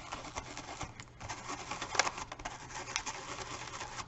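Stiff stencil brush, offloaded nearly dry, dabbing and scrubbing over a plastic stencil on canvas: a rapid scratchy patter of bristles, with a brief lull about a second in and one sharper stroke about two seconds in.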